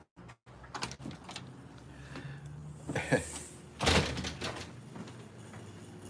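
Handling noise and scattered knocks as a phone camera is carried about, with a brief hiss and then one sharper knock, door-like, about four seconds in.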